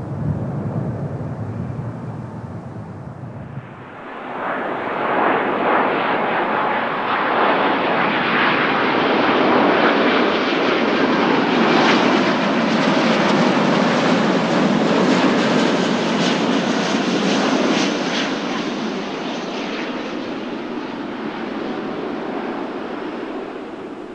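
Large military aircraft's engines: a low rumble, then the engine noise jumps up sharply about four seconds in, stays loud for over ten seconds and fades over the last several seconds.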